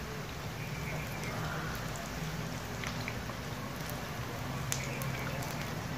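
Besan pakoras shallow-frying in hot ghee on a flat tawa: a steady sizzle with scattered sharp crackling pops, over a low steady hum.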